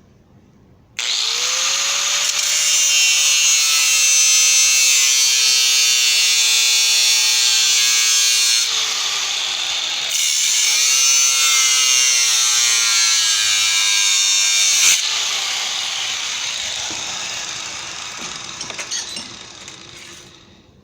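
Hand grinder with a thin abrasive cutoff wheel starting about a second in and cutting a notch into a sheet-metal rim: a loud, harsh cutting noise over a whine that sags under load, easing briefly around the middle. The cut ends after about 15 seconds and the grinder winds down, fading over several seconds.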